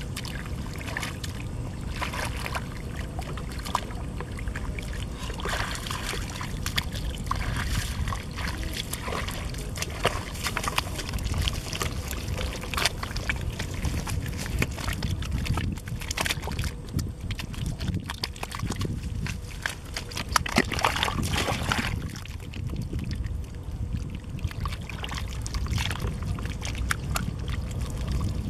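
Bare hands scooping and slapping through wet mud and muddy water: a steady run of squelches, splashes and trickles.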